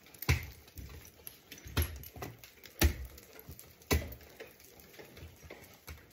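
Ice climber's tools and crampons striking a frozen icefall: four sharp strikes about a second apart, with fainter taps between and after them.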